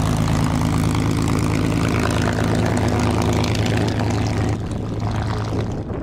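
P-51D Mustang's Packard Merlin V-12 engine running steadily at low taxi power, propeller turning, as the fighter taxis past and away. The sound drops off somewhat about four and a half seconds in.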